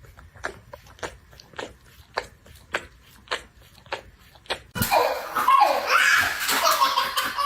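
A steady run of short clicks, about two a second, then people suddenly burst out laughing loudly about five seconds in.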